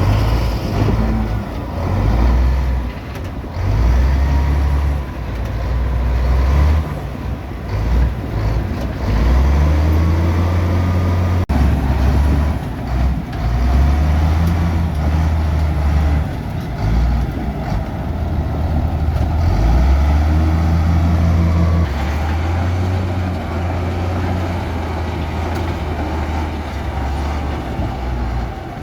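Heavy diesel earthmoving machinery running, its engine revving up and easing off over and over as it works under changing load. The sound breaks off abruptly about eleven seconds in and picks straight up again.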